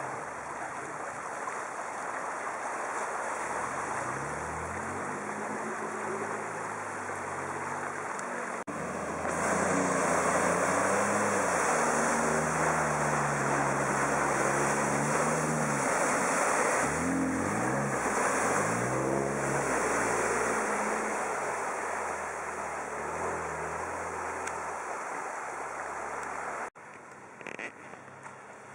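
Jeep Wrangler engine revving up and down as it churns through a deep, water-filled mud trench, with water and mud splashing loudly. The splashing gets louder about nine seconds in, and the sound cuts off suddenly near the end.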